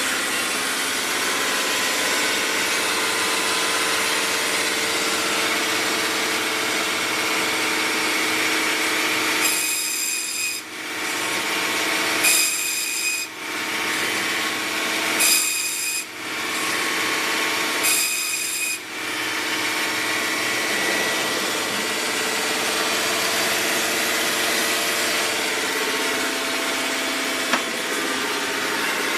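Biro 3334 meat band saw running steadily after being switched on, with four short high-pitched whines a few seconds apart near the middle.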